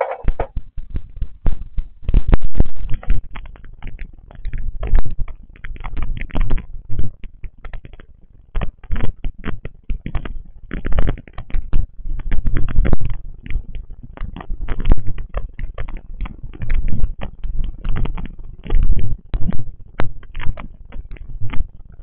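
Heavy rain recorded through a Wyze Video Doorbell's microphone: a dense, irregular crackle of drops with loud low rumbles that come and go.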